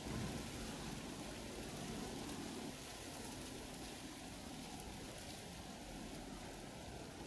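Steady outdoor noise, an even hiss with some low rumble.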